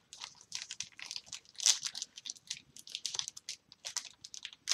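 Trading-card pack wrapper crinkling as it is torn open by hand: a steady run of short, irregular crackles.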